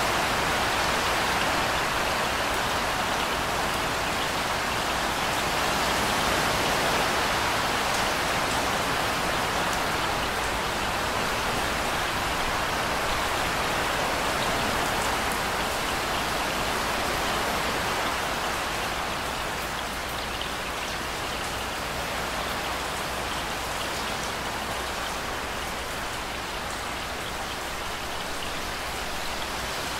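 Steady rain falling: an even hiss with a few faint drop ticks, easing a little in level over the second half.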